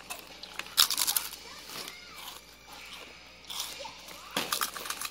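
Foil-lined plastic potato-snack bag crinkling as it is handled, in two short bursts: one about a second in and one near the end.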